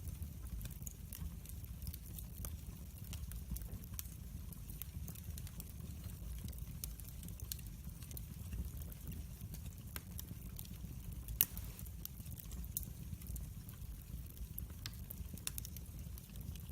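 Wood fire burning in a fireplace, with irregular sharp crackles and pops over a steady low rumble of the flames; one louder pop about eleven seconds in.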